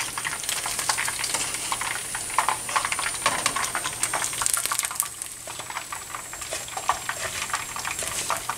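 Chicken wings deep-frying in a pot of hot oil, a continuous crackling sizzle, while a metal strainer spoon scoops wings out of the pot.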